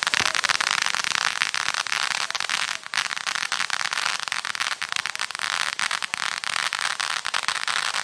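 Ground fountain firework spraying sparks with a dense, continuous crackling, with a brief lull about three seconds in.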